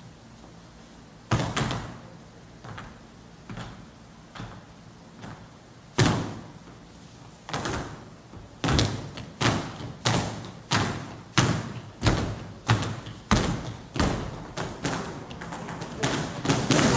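Dancers' shoes stamping on a wooden stage, each stamp echoing briefly. At first a few scattered stamps, then from about halfway a steady beat of roughly three stamps every two seconds.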